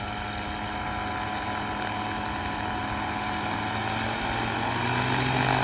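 Ultralight aircraft's propeller engine running at low power as it taxis on the ground, a steady engine note that grows louder near the end as it comes closer.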